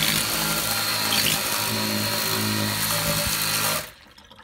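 Hart HPGC011 20V battery pressurized cleaner spraying: its electric pump motor runs with a steady hum under the hiss of the water jet striking a stainless-steel sink. It cuts off suddenly near the end as the trigger is released.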